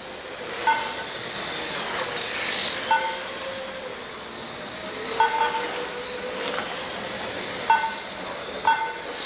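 Radio-controlled race cars running on the track, their motors whining high and sliding up and down in pitch as they speed up and slow down. Several short, sharp blips stand out over the whine.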